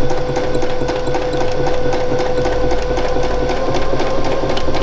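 Domestic sewing machine running steadily at speed, stitching free-motion straight stitch, a constant hum with rapid, even needle ticks.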